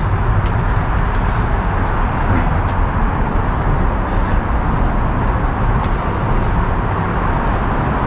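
Steady roar of heavy freeway traffic from Interstate 5, which runs directly beneath the park.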